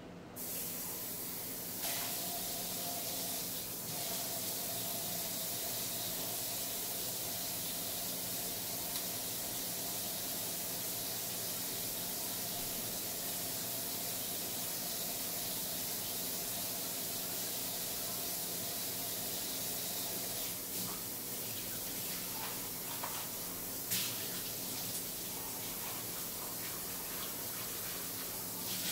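Kitchen tap running in a steady hiss, switched on at the start, with a faint whine in the pipes for most of the time and a few sharp clicks, about three of them.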